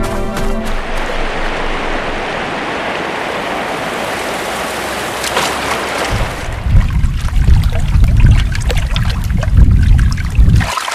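Waterfall rushing, a steady hiss of falling water; about six seconds in it changes to a deeper, rumbling underwater sound.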